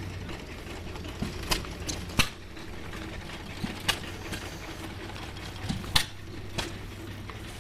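Vintage stationary engines running at a show: a steady low hum with sharp, irregular pops, like hit-and-miss engines firing now and then.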